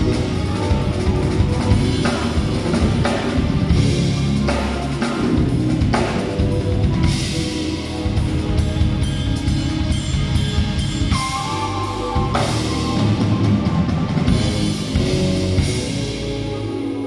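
Live jazz-fusion quartet playing: drum kit, electric bass, grand piano and keyboards, with trumpet, heard from the audience seats of a theatre.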